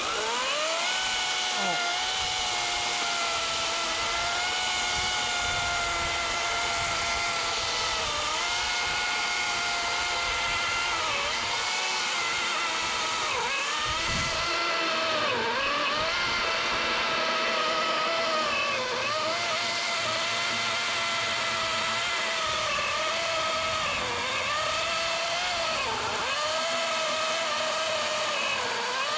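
EGO 18-inch cordless battery chainsaw spinning up to full speed and cutting through a thick cottonwood log. Its electric motor's pitch dips again and again as the chain bogs down under load in the cut.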